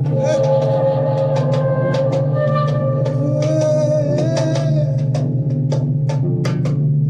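Percussion-led improvised music: hand drums struck several times a second over a held melodic note that wavers about halfway through, with a steady low hum beneath.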